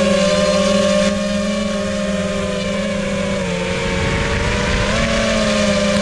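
Motors and propellers of an iFlight Titan XL5 5-inch FPV quadcopter, a steady high buzz, flown in to land on what the pilot takes for a low battery. The pitch drops about three and a half seconds in and climbs back about five seconds in.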